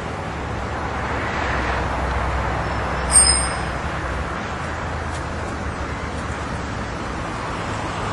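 Outdoor traffic noise: a steady rush of road sound, with a vehicle passing that swells about one to two seconds in. A little after three seconds comes one short, high-pitched ring that fades within about half a second.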